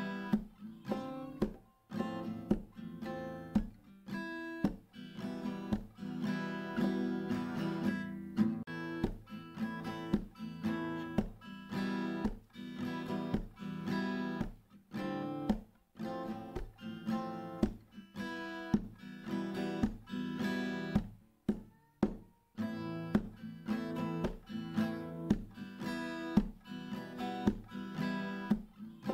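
Background music led by acoustic guitar, plucked and strummed with a steady beat.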